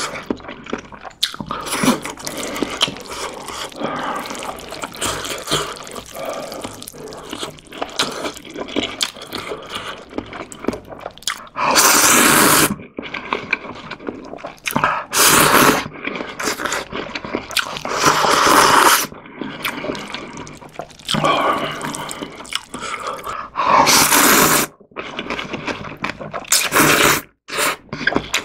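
Close-miked eating of instant ramyeon noodles: continuous wet chewing, with about six loud slurps of noodles, each around a second long, in the second half.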